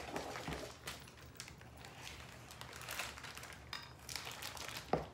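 A plastic wrapper crinkling as it is handled, with soft scraping of a spoon stirring thick brownie batter in a plastic bowl. A sharp knock sounds just before the end.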